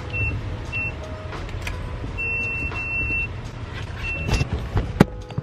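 Gas pump keypad beeping as its buttons are pressed: several short beeps all at one pitch, two longer ones about two seconds in and another around four seconds, over a low steady rumble. A sharp clack near the end.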